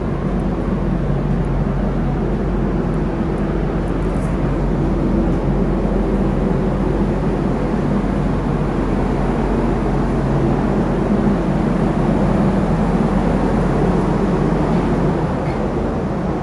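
Steady low drone of the New Taima passenger ferry's engines and machinery, an even rushing noise over a constant low hum.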